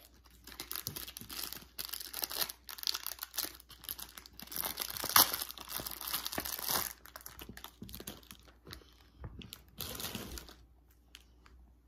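Plastic packaging crinkling and tearing as a toy is unwrapped: a dense run of crackles and sharp snaps, loudest midway, that thins out near the end.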